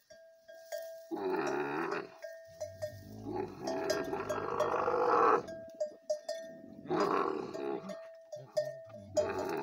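Dromedary camels mating, giving four long, deep calls, each a second or more, the longest about three seconds. A camel's neck bell rings and clinks faintly between the calls.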